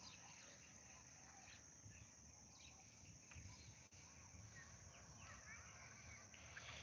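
Near silence: faint open-air field ambience with a few distant, scattered bird chirps over a steady high-pitched hiss.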